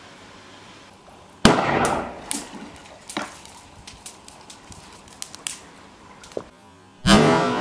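Dry-ice bottle bomb bursting inside a PVC tube cannon floating in a swimming pool: one sudden loud bang about a second and a half in, then water splashing down with scattered short pops. The CO2 pressure has blown the end off the bottle's cap. A second sharp burst of noise comes near the end.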